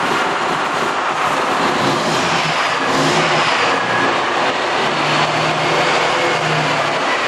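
Detroit Diesel Series 60 straight-six truck diesel running rough and revved just after catching from a hard cold start. The owner has to hold it at about 1400 rpm or it stumbles.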